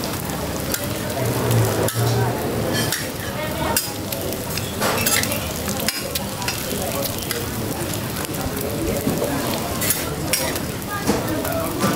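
Roti and eggs sizzling as they fry in oil on a large flat griddle, with scattered sharp clicks throughout.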